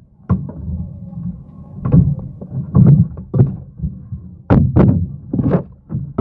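Kitchenware being handled: a run of about seven sharp knocks and clinks as cooked noodles are tipped from a metal strainer and a metal rice cooker lid is set back on near the end, over a low steady hum.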